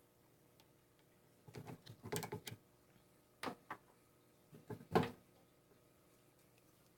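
Scattered knocks and clicks, a quick cluster about two seconds in and the loudest single knock about five seconds in, over a faint steady hum.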